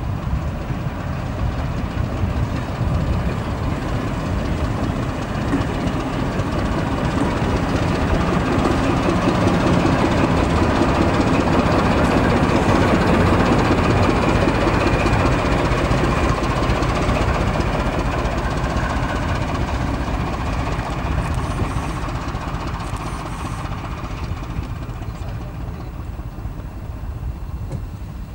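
Class 14 'Teddy Bear' diesel-hydraulic D9526 passing with a brake van, its Paxman diesel engine running and wheels rolling on the rails. It builds up to loudest about halfway through as it passes close, then fades away.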